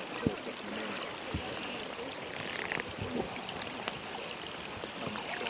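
Steady rain falling: an even hiss with many small scattered taps of drops.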